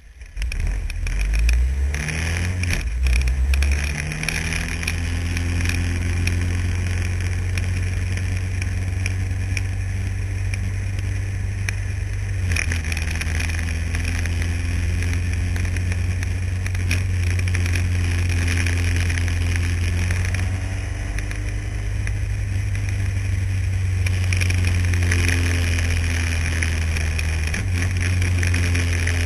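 Formula Renault single-seater's engine heard from the cockpit. It gets suddenly louder just after the start as the car pulls away, revs up through the first gears, then keeps running at speed on track, its pitch shifting several times with gear changes and throttle lifts.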